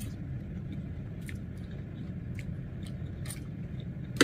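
Mouth sounds of someone eating spaghetti: slurping noodles and chewing, with scattered small clicks and smacks over a steady low hum, and one sharper click near the end.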